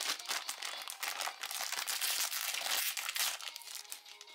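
Shiny plastic foil toy blind bag crinkling as it is handled, a dense crackle that eases off near the end.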